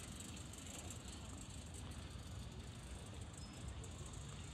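Faint, steady outdoor park ambience: an even hiss over a low rumble, with no distinct events.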